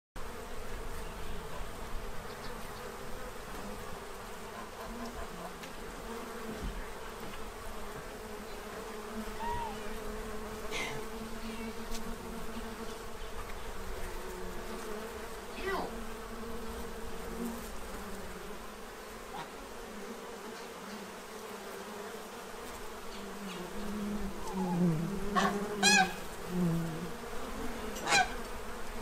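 A crowd of honey bees buzzing steadily as they fly around and crawl over a feeding tray. Farm geese honk several times near the end, the loudest sounds.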